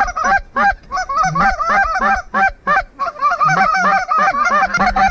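A large flock of geese calling in flight, many short honks overlapping in a dense, unbroken chorus.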